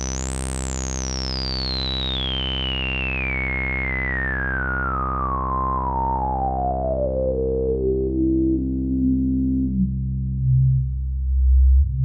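Roland AIRA Compact S-1 synthesizer holding a low sawtooth bass note while its resonant low-pass filter is swept slowly down, a whistling resonant peak gliding from very high to the bottom over about ten seconds. Near the end the filter is swept quickly back up.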